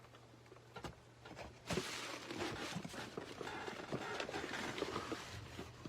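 Packaging rustling, with many small clicks and knocks, as items are handled and dug out of a cardboard shipping box. It starts about two seconds in.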